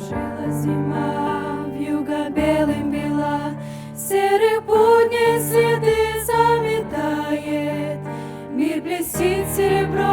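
Group of singers with instrumental accompaniment performing a Russian Christmas song. A sustained bass line and held chords come first, and the voices enter louder about four seconds in.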